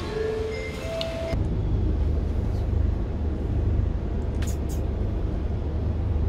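Brief music that cuts off about a second in, giving way to the steady low rumble of a road vehicle driving.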